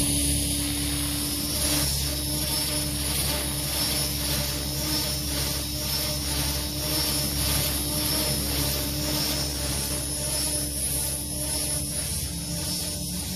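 Electric RC helicopter (JR NEX E6 550) in flight: a continuous steady-pitched whine and buzz from its motor and spinning rotor blades, easing slightly in loudness toward the end.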